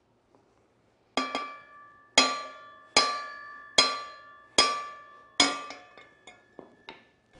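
A hammer strikes the steel driver rod of a collet-type wheel-bearing remover: six ringing metal blows starting about a second in, roughly one every 0.8 s, then a few light taps. The sealed wheel bearing is frozen in the hub and does not come out.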